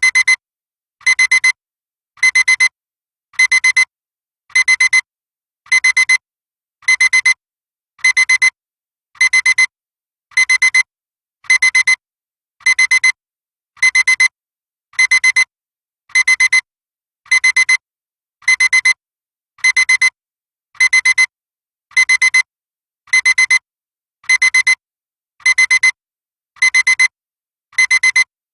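Digital alarm clock beeping: short clusters of rapid high-pitched beeps, repeating evenly about every 0.7 seconds without letting up.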